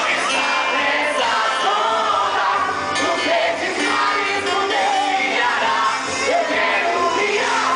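Music with singing at a steady level.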